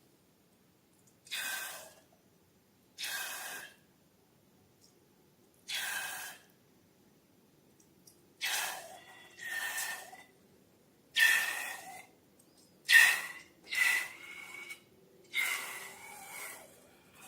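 Slime being squeezed and worked, giving about ten short airy squelches, each under a second, some with a squeaky tone, separated by quiet gaps.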